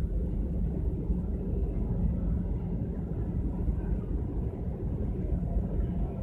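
Steady low rumble aboard a cruise ship under way, heard from its open top deck, with wind buffeting the microphone.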